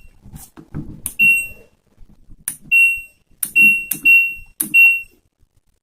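LG front-load washing machine's control panel beeping: five short high beeps at uneven intervals, each started by a click, as of buttons being pressed, with a few extra knocks between.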